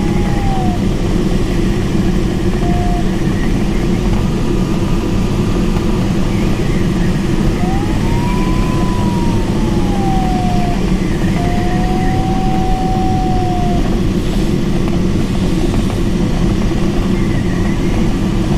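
Steady rush of airflow over the canopy of a Mini Nimbus HS7 glider in flight, heard inside the cockpit. Over it, the glider's electronic variometer sounds a single tone now and then, sliding up and down in pitch. The longest tone is about three seconds, about halfway through, and is followed by a steadier one.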